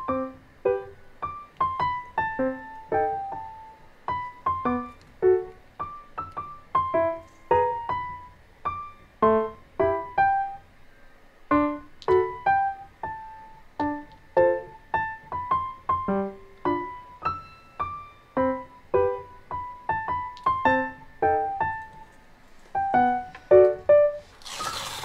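Background music: a gentle solo piano piece, single notes and soft chords at an easy pace. Near the end comes a brief rustle.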